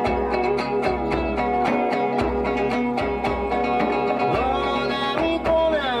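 Live acoustic folk band playing: acoustic guitar and board sanshin (Okinawan three-string lute) over cajon and djembe hand drums keeping a steady beat.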